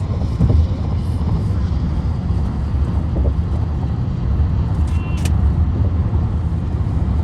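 Car driving on the road: a steady low rumble of tyres and engine, with a brief high click about five seconds in.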